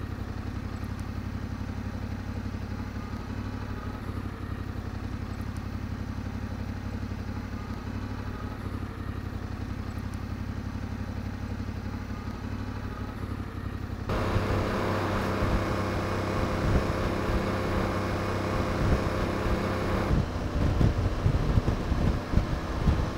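Yamaha Ténéré 700's parallel-twin engine running steadily at low revs. About fourteen seconds in it becomes louder with a fuller engine note, and an irregular low rumble joins near the end.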